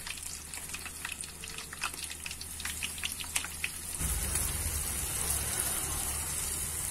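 Breaded tilapia pieces frying in hot oil in a pan over a wood fire, crackling and popping. About four seconds in the frying turns into a louder, steady sizzling hiss.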